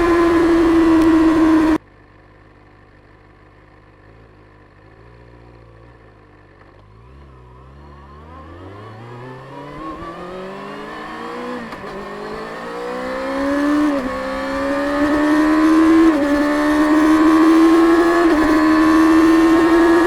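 Stock 2024 Kawasaki Ninja ZX-6R's 636 cc inline-four engine at high revs, cutting off abruptly under two seconds in. It then runs low and quiet for several seconds before pulling hard, its pitch climbing through four quick upshifts.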